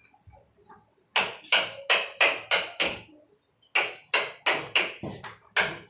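Hammer blows, sharp and evenly paced at about three a second, in two runs with a short pause near the middle, struck while fitting a lockset into a wooden door.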